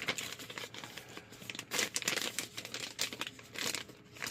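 Packaging being handled, crinkling and rustling in irregular bursts, loudest about two seconds in and again just after three seconds.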